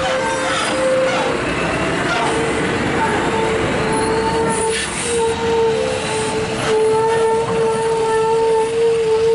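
Scania R580 tractor unit hauling a loaded lowboy trailer slowly past, its running and tyre rumble overlaid by a steady high-pitched squeal from the rig that breaks off only briefly a few times.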